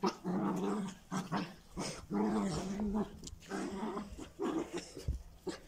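A dog growling and whining in a string of short, rough calls, each held at a steady low pitch, with small clicks between them.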